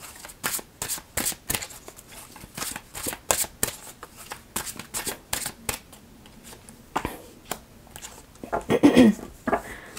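A Lover's Path Tarot deck being shuffled by hand, with quick papery clicks of cards several times a second that thin out after about six seconds as a card is drawn and laid on the table. A brief vocal sound comes about a second before the end.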